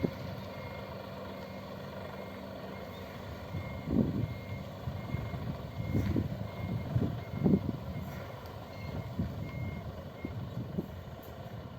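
Tour bus reversing: its backup alarm gives short, even beeps about twice a second, stopping about ten seconds in, over the running engine, which surges louder several times.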